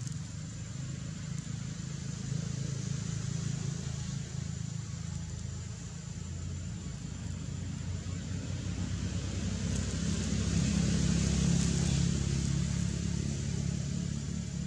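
Motor vehicle engine running with a steady low rumble, growing louder about ten seconds in as it comes closer.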